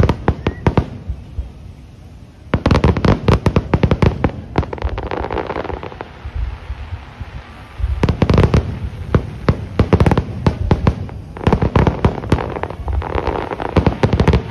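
Aerial fireworks shells bursting overhead: rapid, loud bangs in four close volleys, with the rumble of the blasts hanging on between them.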